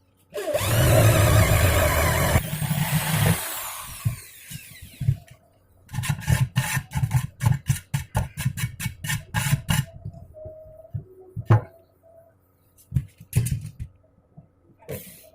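A power tool runs for about two seconds, then switches off and winds down. It is followed by a quick series of sharp knocks, about three or four a second, and a few scattered single knocks near the end.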